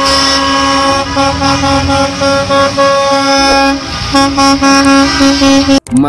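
School bus horns honking in long, overlapping blasts with brief breaks, over a low engine rumble; the sound cuts off sharply near the end.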